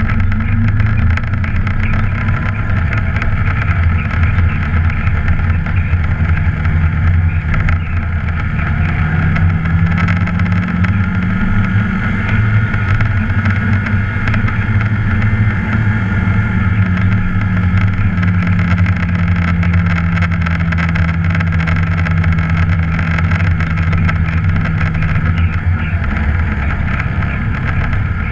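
ATV (quad bike) engine running steadily under way, heard from a camera on its front rack. The engine note wavers slightly and drops near the end.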